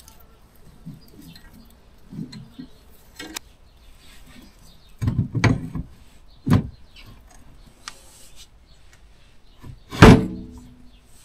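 Metal clanks and knocks as a hub motor is worked onto the end of a steel rear axle. A cluster of knocks comes about five seconds in and another a second later. The loudest, a clank that rings briefly, comes about ten seconds in.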